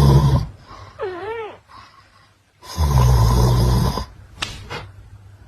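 A sleeping person snoring loudly: two long, rasping snores, the second about two and a half seconds after the first, with a short wavering whistle-like tone between them. Two sharp clicks come near the end.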